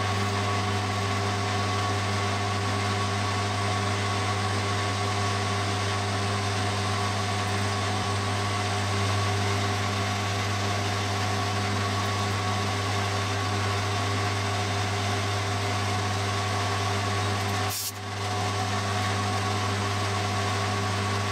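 Metal lathe running steadily, a constant motor hum with a few steady whining tones over it, while a twist drill in the tailstock bores a pilot hole into the spinning crankcase casting's venturi. The sound drops out very briefly near the end.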